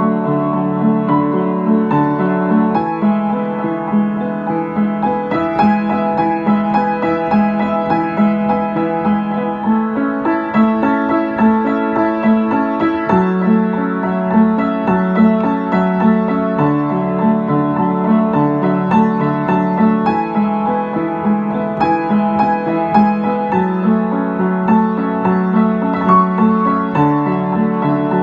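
Upright piano played solo: a melody over repeated low accompaniment notes, with the chords changing every couple of seconds.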